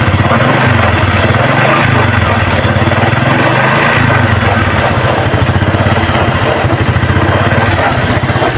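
Small single-cylinder four-stroke motorcycle engine, a Honda XRM 125 Fi, running with the revs rising and falling a few times. It is the engine the owner says knocks low in the engine in every gear.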